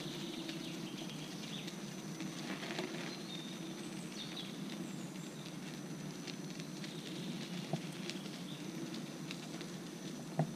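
Kingsong KS14 electric unicycle rolling along a dirt path: a steady low rolling noise from the tyre, with scattered small ticks and crackles.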